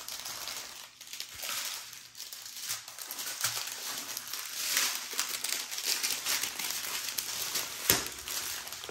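Small clear plastic bags of diamond-painting drills crinkling and rustling as hands sort and shuffle through them, with a sharper crackle near the end.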